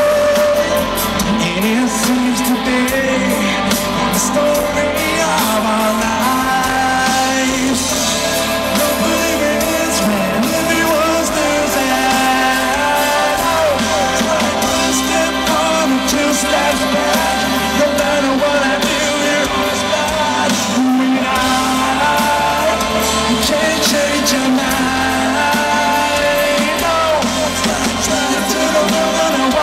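Live rock band playing a song with electric guitars, drums and singing, loud and continuous, heard from among the audience.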